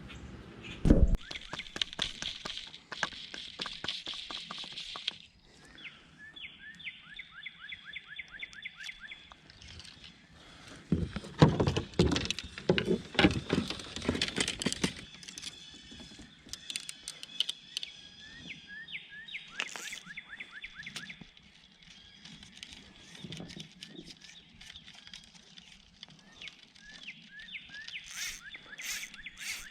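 Outdoor river ambience with birds chirping over and over in short, slightly falling notes, mixed with scattered clicks and knocks. There is a louder stretch of rustling and knocking about halfway through.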